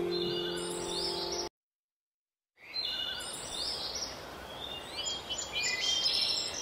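Birds chirping in short, high, pitch-sliding calls over a steady background hiss. Before that, background music with held notes breaks off about a second and a half in, leaving about a second of dead silence.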